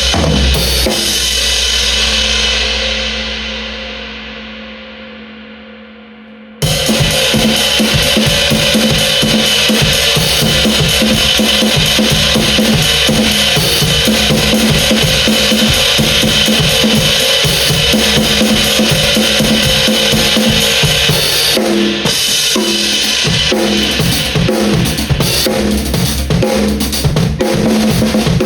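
Drum kit played with an 18-inch traditional crash cymbal: a crash rings out and fades for about five seconds, then the kit starts again suddenly with a busy beat of kick, snare and cymbals that carries on steadily.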